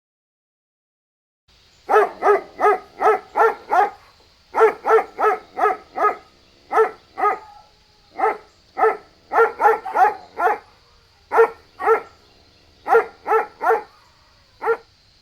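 A dog barking over and over in quick runs of two to five short, pitched barks, about 25 in all. The barking begins after a second and a half of silence, over a faint steady hiss from the recording.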